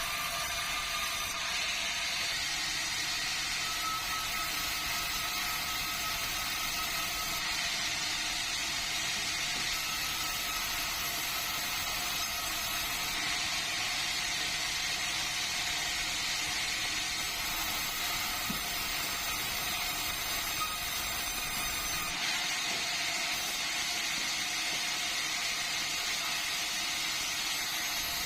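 Sawmill saw running steadily, a continuous even rushing noise with no breaks.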